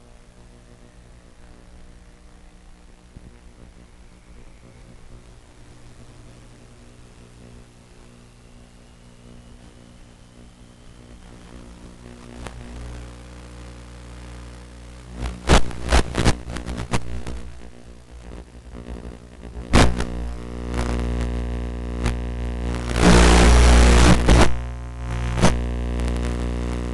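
A steady electrical hum of several tones, with no motor running. In the second half come a series of sharp knocks and clatters and a brief loud burst of rustling noise, as the landed RC plane is handled and moved.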